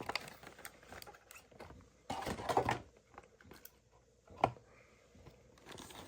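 Cardboard box and packaging being handled and opened: scattered light clicks and taps, a short rustle about two seconds in, and a sharp click a little after the middle.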